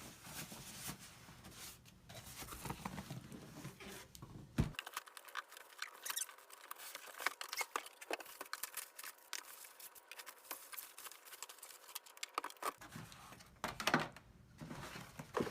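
Packing materials being handled while unboxing an espresso machine: irregular rustling and crinkling with many scattered light clicks and taps.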